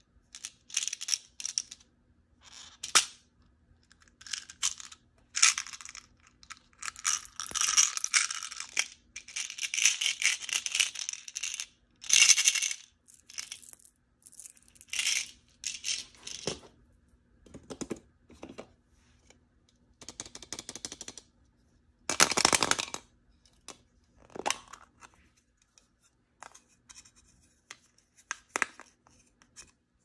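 Hands rummaging through a box of small hard-plastic toys and plastic surprise eggs: repeated bursts of plastic pieces clattering and rattling against each other, with sharp clicks as capsules are picked up and handled.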